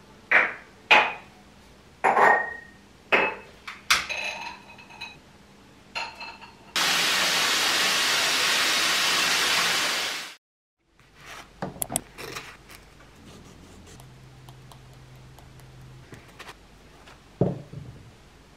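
Short clinks and knocks as glass items are set down on a tiled ledge, then water gushing from a bathtub mixer tap for about three seconds before it cuts off. Scattered soft taps and clicks follow.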